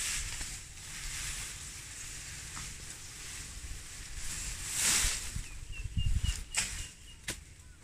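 Tall wild grass being gathered and cut by hand: stalks and leaves rustling, with a louder swish of leaves about five seconds in and a few sharp cracks of stalks near the end.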